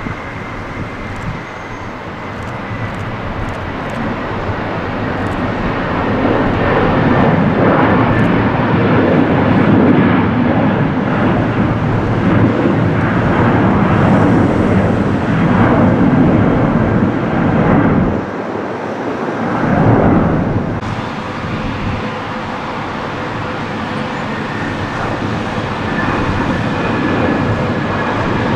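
Twin jet engines of an Airbus A330 at takeoff thrust: a rumble that builds over the first several seconds and then holds, with a faint whine slowly falling in pitch as the jet climbs away. About two-thirds of the way through the sound dips briefly, and a second airliner's takeoff roar carries on to the end.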